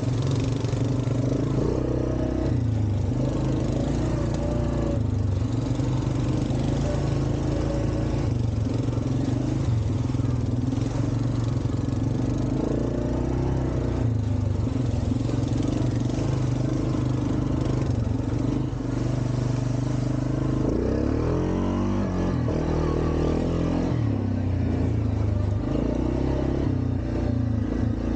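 ATV engine running under changing throttle while riding a trail, its pitch stepping up and down, with a sweeping dip and rise in revs about three-quarters of the way through.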